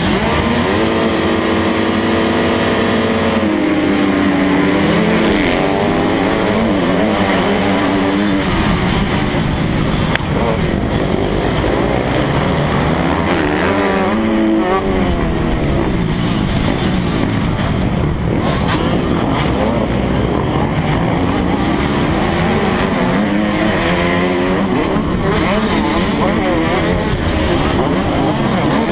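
A field of MX2 motocross bikes revving hard at the start gate, held at a steady high pitch for the first few seconds. Then the rider's own bike launches and runs up through the gears close to the microphone, its engine pitch rising and dropping again and again with each shift and throttle change.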